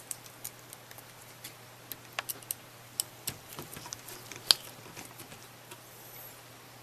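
Scattered light clicks and taps of a hard disk and its mounting parts being handled and fitted into a PC case's drive bay, with one sharper click about four and a half seconds in. A faint steady low hum sits underneath.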